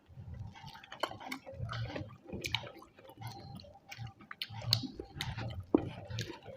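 Close-up chewing of rice and curry: wet smacking and squishing mouth sounds with irregular small clicks.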